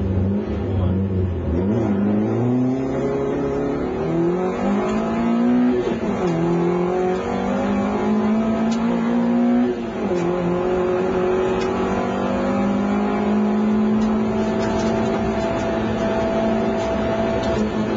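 Rally car engine heard from inside the cabin, accelerating hard through the gears: the pitch climbs, drops at upshifts about six and ten seconds in, then rises slowly again. A few sharp ticks sound over the engine.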